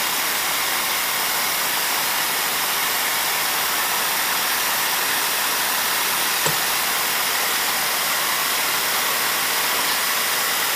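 Steady hiss of a mist coolant nozzle blowing on the work at a DoAll vertical mill, with the mill running underneath at an even level. A single small click about six and a half seconds in.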